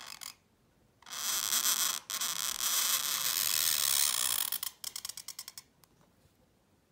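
Ink-loaded calligraphy pen nib scratching across paper in long strokes, a steady rasp that breaks off briefly once. It ends in a quick run of light scratchy ticks that fade out.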